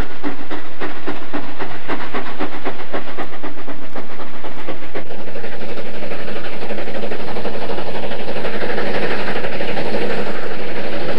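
Steam train running by. For about the first five seconds there is a rapid, regular clatter. After that it gives way to a steady rushing hiss and rumble as the locomotive comes on.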